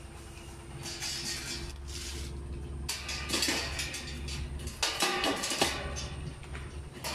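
Stainless steel dog-cage panels and rods clinking and rattling against each other as they are handled and fitted together, in scattered bursts of clatter over a steady low hum.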